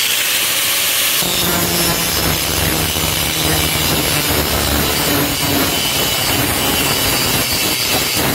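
Angle grinder with a depressed-centre grinding disc running, then about a second in the disc bites into a weld on a steel square tube and grinds it steadily, metal on abrasive.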